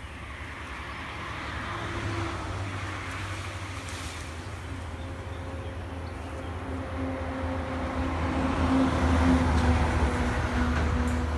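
Road traffic passing on a highway, a rushing noise with a low engine rumble and hum. It swells about two seconds in and grows loudest near the end as a vehicle goes by.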